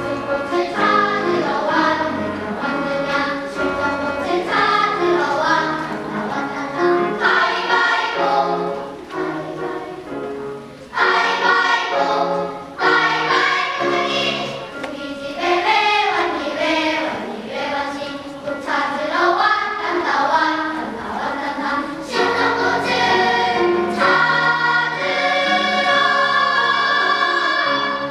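Children's choir singing with accompaniment, holding a long chord over the last few seconds.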